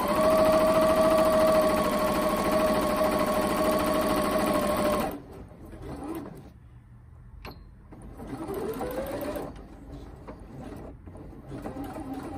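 Janome 1030MX computerized sewing machine stitching a straight seam: its motor runs at a steady whine for about five seconds and stops suddenly. After a click, it starts again, rising in pitch, and stops after about a second.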